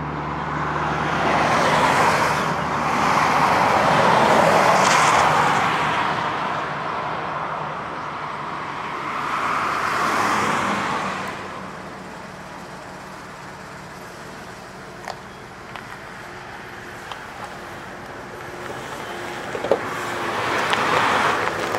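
Road traffic: cars passing one after another, each with a swell of tyre and engine noise that fades, the loudest pass about four to five seconds in. After a quieter stretch with a few small clicks, a large coach's engine grows louder near the end.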